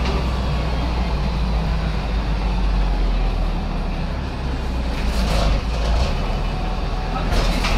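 LAZ A183D1 diesel city bus running, its engine a steady low hum, with a short hiss about five seconds in and another near the end.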